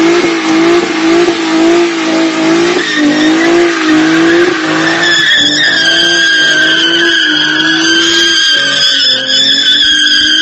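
Ford Mustang doing a burnout: the engine is held at high revs, its pitch bobbing up and down, over the loud hiss of the spinning rear tyres. About halfway through, the tyres break into a steady high squeal.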